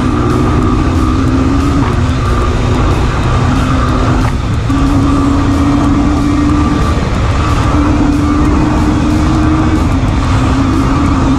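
Single-cylinder dirt bike engine running at a steady high speed, with heavy wind rush over the microphone. The engine note holds level apart from a short dip a little after four seconds in.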